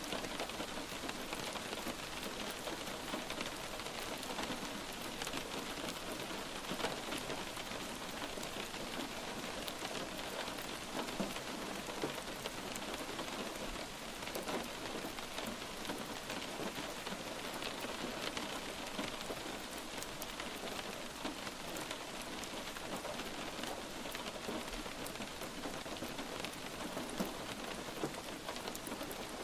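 Steady light rain falling, an even hiss with many small drops pattering on a surface.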